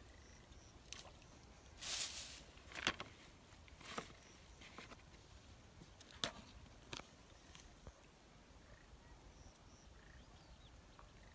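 Close handling noises: a short rustle about two seconds in, then a few sharp clicks and taps, as a plastic bucket and a small plastic cup are handled among dry grass.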